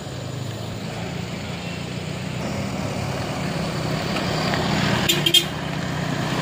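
Light truck's engine running as it drives slowly up close, growing steadily louder, with a couple of short sharp knocks about five seconds in.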